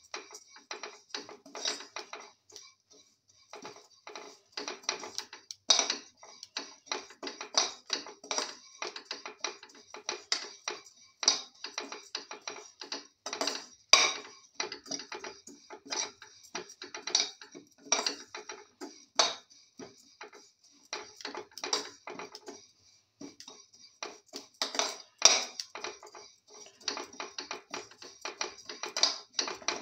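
Metal spatula scraping and clinking against a metal pan as thin vermicelli is stirred and tossed while it roasts in ghee. The scrapes and taps come in a fast, irregular run, with a couple of brief pauses.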